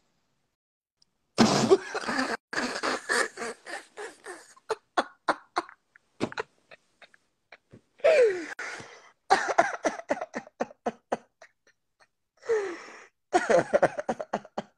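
A person laughing hard in three fits. Each starts with a loud burst and breaks into a run of quick, fading ha-ha pulses, about the first, eighth and thirteenth second.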